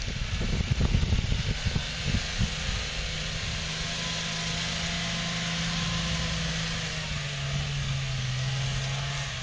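Toyota Land Cruiser 70-series engine running as it drives off-road across a grassy slope, a steady engine note that drops in pitch about seven seconds in. Wind buffets the microphone in the first two seconds or so.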